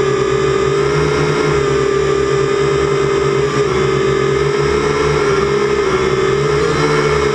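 Syma X8C quadcopter's motors and propellers whining steadily in flight, the pitch wavering slightly now and then.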